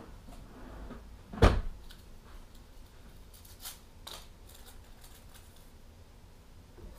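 Small sharpening items being handled and set down on a wooden bench: one loud knock about a second and a half in, then a few light clicks and taps.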